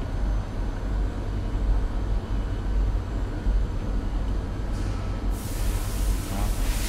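A steady low rumble, with a hiss that starts about five seconds in and fades away over about a second and a half.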